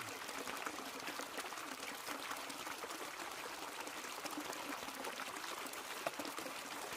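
Water rushing steadily down a high banker's sluice box, pumped in through the hose and spray bar and washing material over the riffles.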